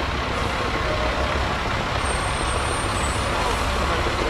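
Heavy dump truck's engine running as it moves past close by, a steady low rumble over street noise.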